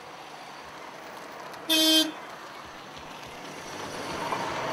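A single short vehicle horn toot about two seconds in, clearly the loudest sound, over steady background noise that grows louder near the end.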